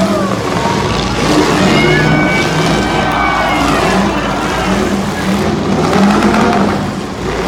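Several demolition derby cars' engines running and revving loudly, their pitches rising and falling and overlapping.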